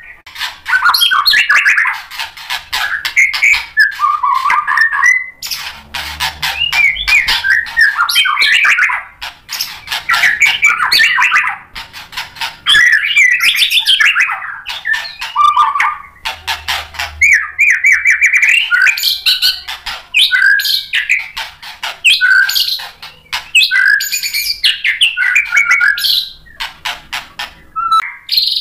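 White-rumped shama singing loudly in full song: fast, varied phrases of whistles, trills and harsh chattering notes, running through its repertoire of mimicked calls, broken by short pauses every few seconds.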